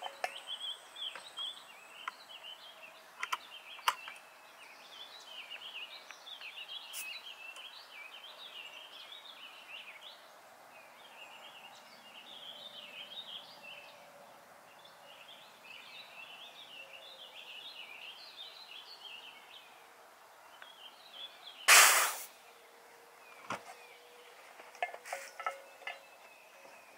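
Wild birds chirping and singing, with a few faint clicks in the first several seconds. About 22 seconds in there is a single loud, sharp sound.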